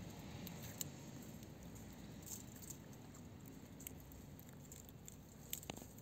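A tortoise biting and chewing a strawberry: faint, scattered small clicks and crunches.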